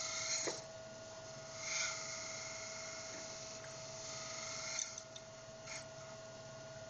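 Steady hum of a camshaft grinding machine running while the tooling is aligned, the wheel not yet cutting, with a few soft brief swishes.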